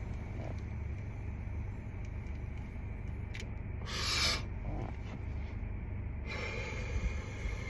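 A person exhaling a draw of vape vapour: a short, forceful breath out about four seconds in, followed by a softer, longer breath out, over a steady low hum.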